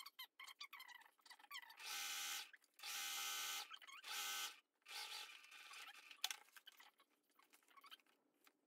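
Domestic sewing machine stitching through waxed canvas in three short runs, each a second or less, with fabric rustling between them and a single sharp click a little later.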